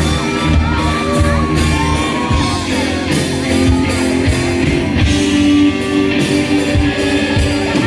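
Live rock band playing a song through a PA in a large hall, with electric guitar and drums and a singing voice.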